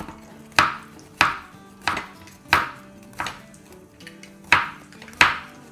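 A knife chopping ridge gourd (kali tori) on a cutting board: about nine even cuts, one every two-thirds of a second, each a crisp crunch through the gourd ending in a knock on the board.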